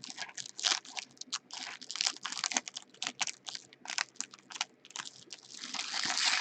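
Stiff Topps Chrome trading cards being handled and flipped through, a quick irregular run of short clicks and slides, with a longer, louder rustle building near the end.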